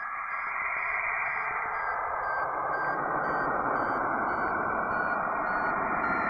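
Electronic sound-effect intro to a doom-metal track: a swelling hiss of radio-like static under a steady run of short, high electronic beeps, about two to three a second, stepping in pitch, like a satellite's signal.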